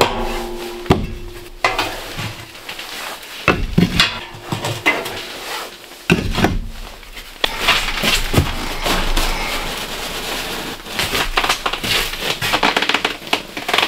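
Sheet-metal clanking and scraping as an oil-barrel woodstove and its stovepipe are handled and taken apart. Sharp knocks come with a short metallic ring near the start, and the second half is a busier run of rattling and scraping.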